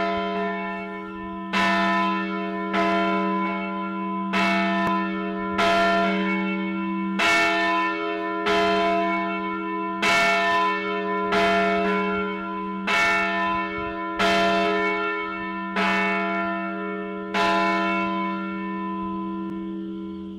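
A single church bell tolling, struck about fourteen times at a steady pace of roughly one stroke every second and a half. Each stroke rings on into the next, and the last one decays near the end.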